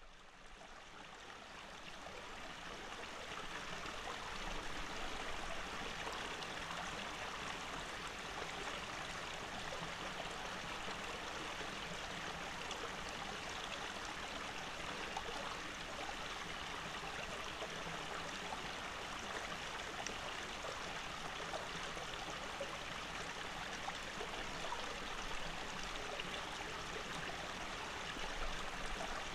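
Shallow forest stream running over rocks: a steady rush of water that fades in over the first few seconds, then holds even.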